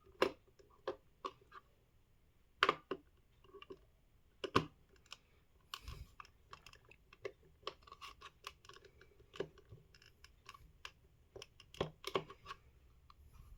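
Small screwdriver working a screw out of a plastic wireless-mouse casing: irregular sharp clicks and light scratching as the tool turns and slips in the screw head.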